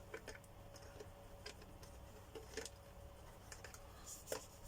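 Faint, scattered light clicks and taps of plastic vacuum-cleaner parts being handled and fitted together, a few separate clicks with the clearest near the end.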